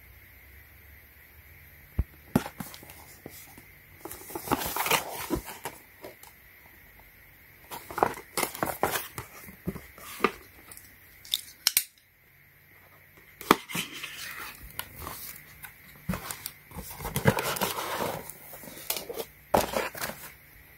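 A small white cardboard product box being opened by hand: scraping, tearing and rustling of cardboard and packing in irregular bursts, with a few sharp clicks. It starts about two seconds in and breaks off briefly midway.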